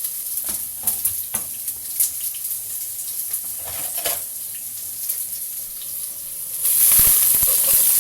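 Hot cooking oil sizzling, with scattered sharp pops. Near the end the sizzle suddenly jumps much louder as the sliced onion and garlic go into the very hot oil.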